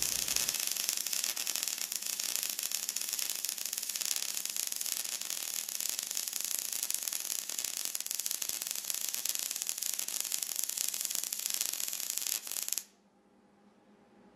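MIG welding arc crackling steadily while a vertical fillet weld is run up a T-joint, then cutting off suddenly near the end as the arc stops.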